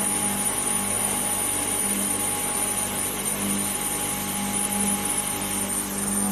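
Steady machinery noise from a vacuum-process moulding line. A low hum swells and fades roughly once a second, and a few high steady tones run beneath it.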